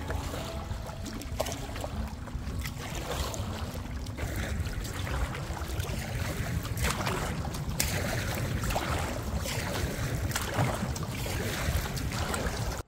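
Wind gusting across the microphone over choppy water, with water splashing around a paddled canoe.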